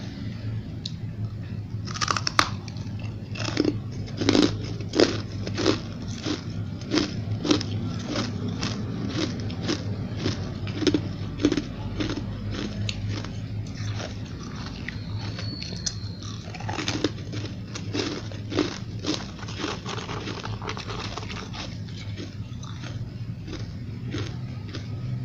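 Fluffy refrozen ice chunks being chewed, crunching in a steady run of crisp bites about two a second, with a short pause in the middle. A low steady hum lies underneath.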